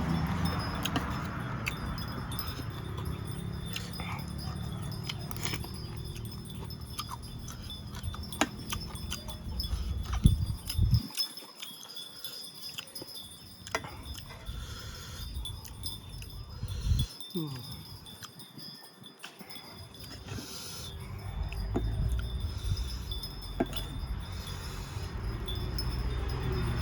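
A person eating: chewing with scattered sharp clicks and crunches, over a low rumble that drops out twice, about a third of the way in and again past the middle.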